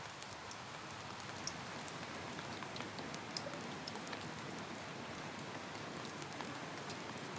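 Rain falling steadily: an even hiss with scattered sharp drop ticks.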